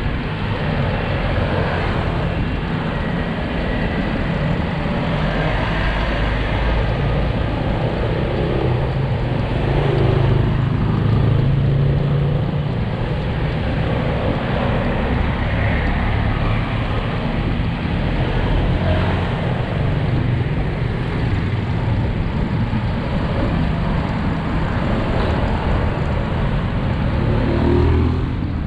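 City street traffic heard from a moving bicycle: motorcycles and cars running alongside and passing, a steady mix of engine hum and road noise. It swells briefly about ten seconds in, as a vehicle's engine comes close.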